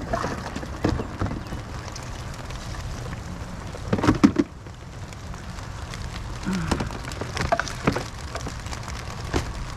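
Steady rain falling, with scattered knocks and rustles from items being handled, and a louder clatter about four seconds in.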